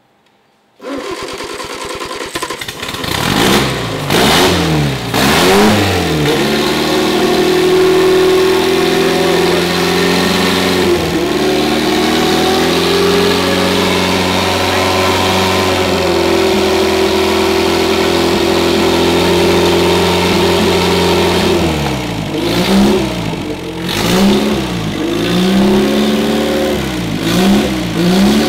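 Rebuilt MG TC XPAG four-cylinder engine on a test stand starting for its first run. It catches about a second in and is revved a few times, settles to a steady fast idle, then is revved up and down again near the end.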